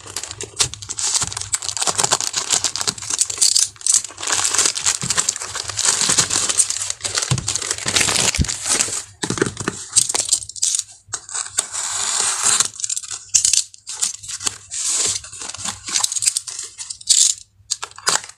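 Packaging crinkling and tearing as a parcel is unwrapped by hand, in long stretches of crackly rustling with short pauses.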